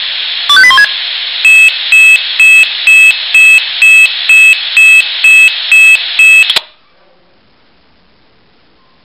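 Swissphone Quattro XL+ pager sounding its alert for a test alarm: a short stepped beep melody, then a run of about a dozen even high beeps, roughly two a second, over a steady hiss. All of it cuts off abruptly a little over six seconds in.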